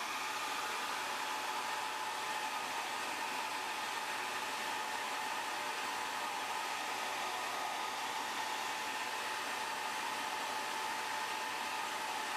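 Handheld hair dryer running steadily, a constant rush of air with a faint whine, blowing hot air on a phone's front glass to soften the adhesive.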